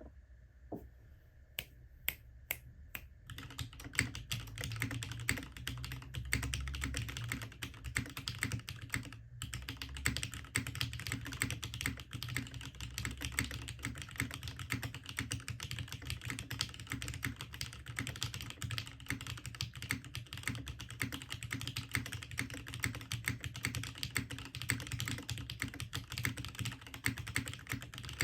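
Typing on a custom mechanical keyboard: a Hineybush HBCP with an FR4 plate, lubed Cherry MX Retooled Black linear switches and GMK keycaps. A few single keystrokes come first, then steady fast typing from about three seconds in, with a short pause a little after nine seconds.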